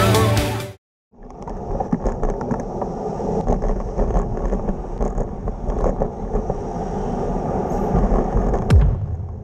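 City street sound from a camera on a moving bicycle: a steady rumble of traffic and rolling tyres, with small knocks and rattles from the bike over bumps. It starts after a short silence about a second in.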